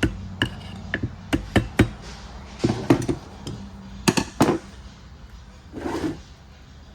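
Parts of a Ford 10R140 transmission's CDF clutch drum clicking and knocking against each other as a component is worked back and forth to free it from the drum. The clicks come irregularly, about a dozen in the first four and a half seconds, with a softer scrape near the end.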